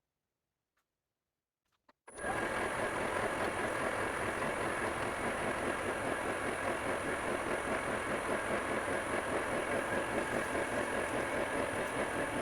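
Ajax universal milling machine's power feed running, starting abruptly about two seconds in and then holding steady with a thin high whine.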